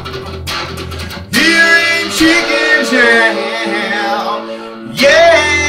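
Electric guitar, a Stratocaster-style solid-body, playing a blues lead: picked notes at first, then from about a second in, sustained notes bent up in pitch, with another bent note near the end.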